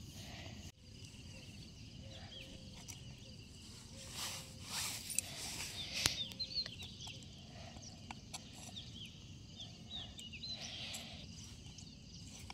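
Quiet outdoor ambience with birds giving short chirps again and again, over faint rustling and clicks as a hook is worked out of a snakehead fish's mouth with pliers.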